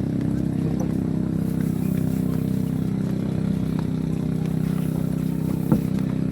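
An engine running steadily at one unchanging pitch, with a single sharp click near the end.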